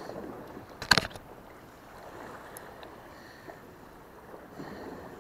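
Steady wash of sea and wind noise, with one sharp, loud click or knock about a second in, most likely from handling the spinning reel.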